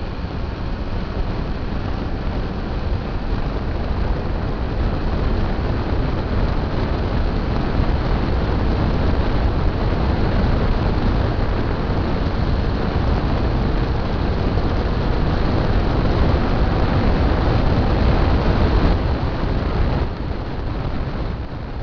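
Motorcycle riding at road speed, heard through a bike-mounted action camera: wind rushing over the microphone with the engine and road noise underneath. It grows louder after a couple of seconds and eases off near the end.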